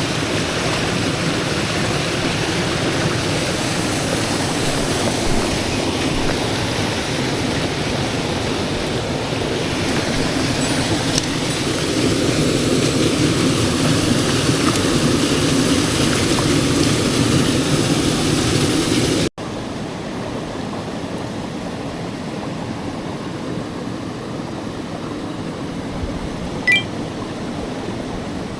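Mountain stream water rushing steadily over rocks. About two-thirds through the sound cuts abruptly to a quieter stretch of flowing water.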